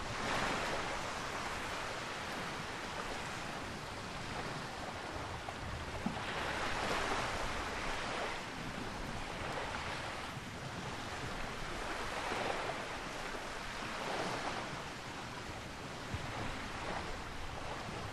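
Small waves washing in over a sandy beach: a steady surf hiss that swells and eases every couple of seconds.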